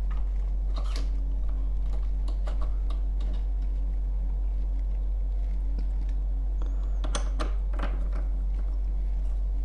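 Scattered light clicks and taps of a sharpening disc being handled and pressed into the holder of a graver-sharpening jig, a few near the start and a cluster of three or so near the end. Under them runs a steady low hum.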